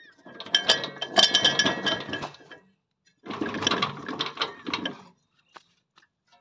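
Steel rotary tiller tines of a power weeder clinking and rattling as they are handled with the engine off, in two bursts of about two seconds each, with some metallic ringing in the first.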